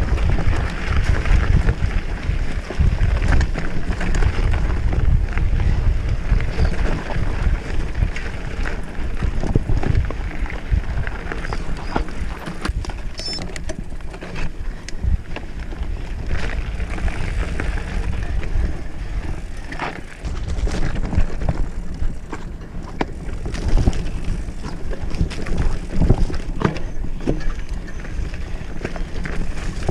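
Mountain bike riding along a dirt singletrack: tyres rolling over dirt and stones and the bike rattling and knocking over bumps, with wind buffeting the microphone in a steady low rumble.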